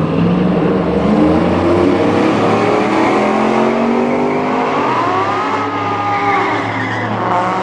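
Drag cars' engines, a C7 Corvette and an Audi RS7, revving at the start line with the pitch climbing steadily, then launching about five seconds in with a rising and falling squeal of rear-tyre wheelspin.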